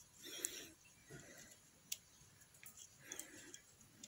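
Faint scattered clicks and soft rustling of small parts being handled: the carbon brushes, springs and wires of a Piaggio Zip scooter starter motor being fitted into its brush holder by hand.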